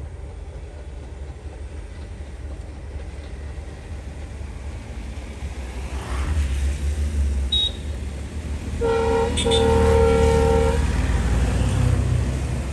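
Train rumbling closer and growing louder, then sounding its horn, a chord of several notes, twice about two-thirds of the way through: a short blast and then a longer one.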